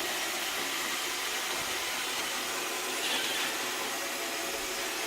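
iRobot Roomba 680 robot vacuum running: a steady whir of its suction motor and brushes sweeping a bare floor, with a brief rise in hiss about three seconds in.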